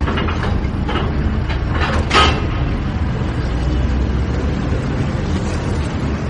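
Factory machinery running: a steady low rumble, with a few short knocks in the first couple of seconds, the loudest a little over two seconds in.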